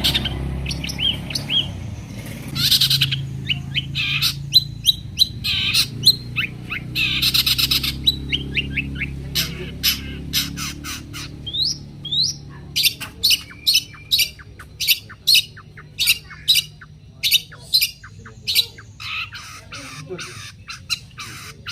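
Long-tailed shrike (cendet) calling: a few harsh, rasping squawks in the first several seconds, then a rapid run of short, sharp chattering notes with a few quick rising whistles.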